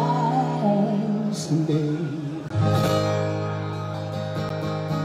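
Man singing a drawn-out vocal line that slides down in pitch over a strummed acoustic guitar. About two and a half seconds in, a fresh chord is struck and left ringing, slowly fading.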